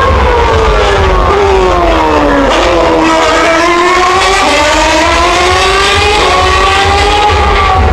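Formula 1 car's 2.4-litre V8 engine at high revs. The pitch falls for about two and a half seconds as it slows for the corner, then climbs again as it accelerates away.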